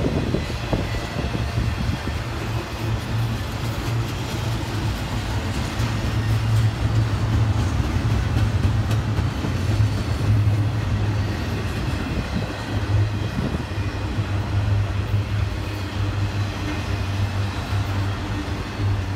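Cars of a Norfolk Southern intermodal freight train, flatcars and well cars loaded with highway trailers and containers, rolling past on the rails with a steady low rumble of steel wheels.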